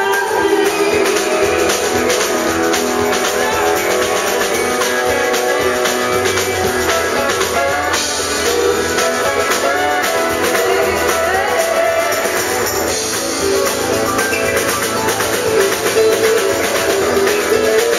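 Live country band playing: acoustic and electric guitars strummed over a drum kit, at a steady loud level.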